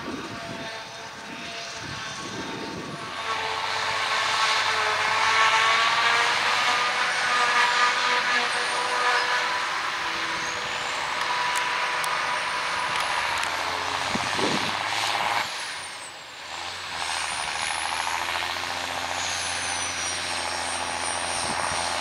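Claas Jaguar 970 forage harvester and a John Deere tractor running under load while the forager chops grass into the tractor's silage trailer, with steady engine drone and a high whine that rises and falls. After a short dip about two-thirds of the way in, the John Deere tractor's engine carries on as it hauls the loaded trailer.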